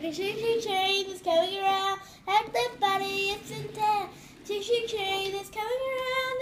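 A child's voice singing a wordless tune in long held notes that slide from one pitch to the next.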